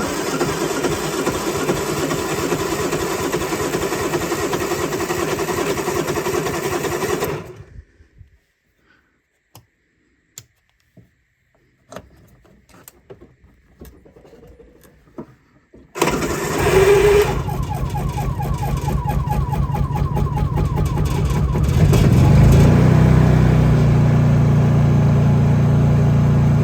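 Honda EU3000 generator engine being started after a night at sub-zero temperature. A first attempt runs for about seven seconds and stops. After a quiet pause with a few clicks, a second attempt at about sixteen seconds gets it going, and about twenty-two seconds in it settles into a steady, even run at full speed with the eco throttle off.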